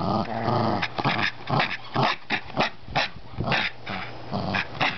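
Small dog growling while tugging a rope toy: a low steady growl, then about a second in a run of short sharp growls, roughly three a second, easing back to a steadier growl near the end.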